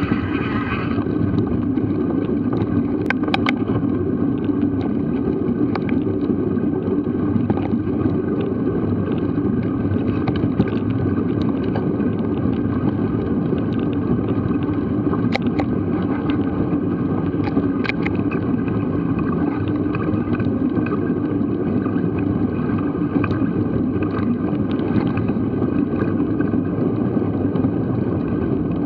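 Mountain bike riding over a dirt forest track: steady rumble of knobbly tyres on the ground and wind buffeting the microphone, with scattered clicks and rattles from the bike over bumps.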